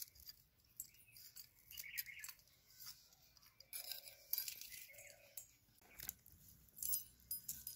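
Faint, scattered clinks and rustles of hands working with stainless-steel bowls. Near the end, fresh coriander is swished in a steel bowl of water.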